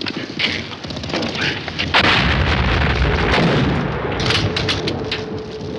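An artillery shell explodes about two seconds in: a sudden loud blast with a deep rumble that slowly dies away. Sharp cracks of gunfire come before it and again from about four seconds in.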